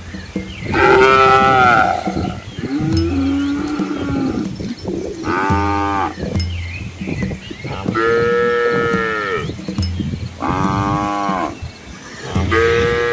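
Cattle mooing repeatedly, about six long calls one after another at differing pitches, some higher and some deeper, from more than one animal.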